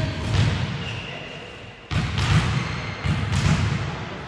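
A volleyball being struck and thudding during play, about six dull thumps that come in close pairs.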